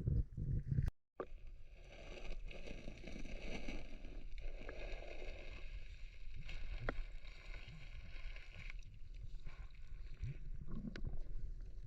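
Water sloshing and splashing around a person moving through it, with scattered small knocks. The sound cuts out briefly about a second in.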